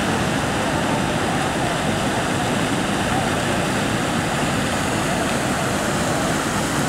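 Steady rushing of fountain water jets.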